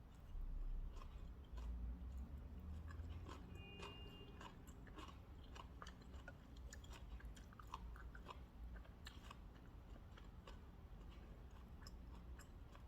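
A person chewing food close to the microphone, with many small irregular mouth clicks and crunches.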